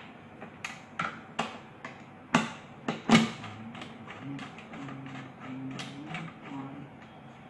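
Sharp clicks and knocks of plastic parts as an electric iron's handle is seated, then a screwdriver tightening the handle's fixing screw, a low buzzing drone lasting about three seconds.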